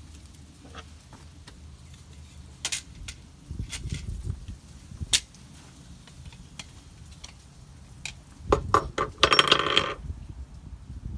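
Scattered sharp taps and clicks of a hammer and hand tools working a plastic window corner part loose, with a quick run of knocks and a short rattling scrape about nine seconds in.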